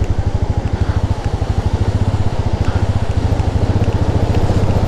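Royal Enfield Meteor 350's single-cylinder engine running steadily, its firing pulses close and even, heard from the handlebars as the motorcycle rides into a stream crossing.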